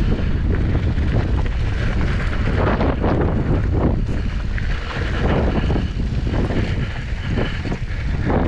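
Mountain bike rolling along a dry dirt singletrack, its tyres crunching over loose dirt and stones and the bike rattling over bumps, under heavy wind buffeting on the camera microphone.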